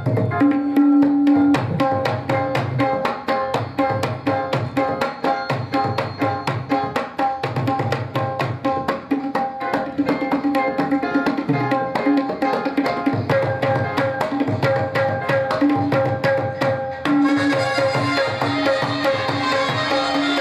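Tabla drumming a fast rhythm of rapid strokes, with deep bass strokes from the larger drum, over a held harmonium melody in Pashto music. About three-quarters through, the music grows brighter and fuller.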